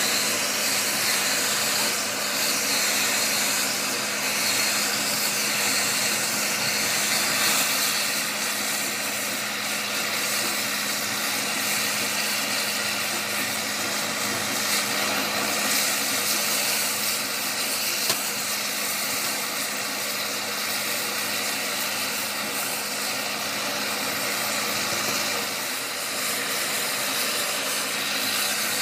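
A machine running steadily, a constant hum under a broad hiss, with a single sharp click about eighteen seconds in.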